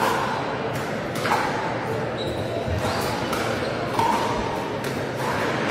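Pickleball paddles striking a plastic ball, a run of sharp pops at irregular intervals, each with a short ring, echoing in a large sports hall over background chatter.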